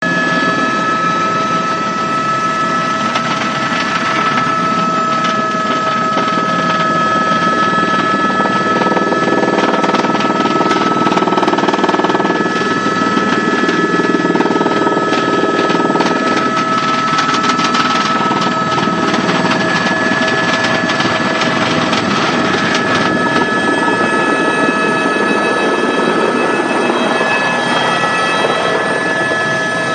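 A motor running steadily, with a steady high whine over it.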